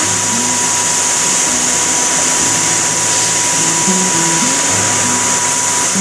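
Steady, loud hissing factory machine noise with a thin high whine that cuts off just before the end, over a quiet background melody.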